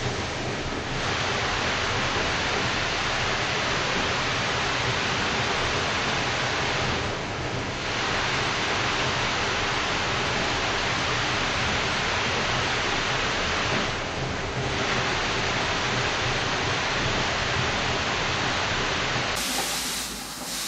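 Steady rushing, hissing noise of a recirculating-water fish tank system, with water running through the tanks and plumbing. It dips briefly twice, and near the end it changes to a thinner hiss.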